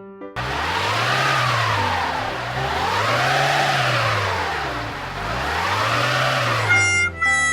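Car engine revving three times, each rev rising and then falling in pitch. Light plucked music comes in near the end.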